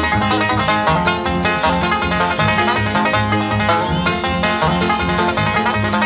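Banjo-led bluegrass music with fast picked notes over an alternating bass line.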